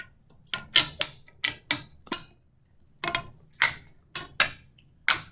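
Silicone pop-it fidget toy being pressed bubble by bubble, about a dozen sharp popping clicks at an uneven pace, with a short pause a little after two seconds in.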